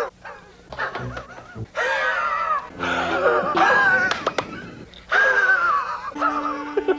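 A man's comic wheezing laugh, coming in several bursts with wavering pitch.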